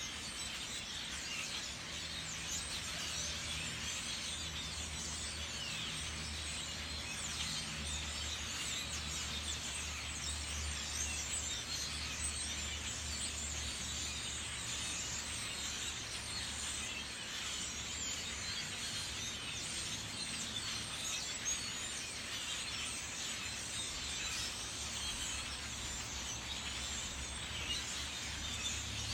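A large flock of birds calling all at once: a dense, continuous chatter of many overlapping chirps, over a faint low hum.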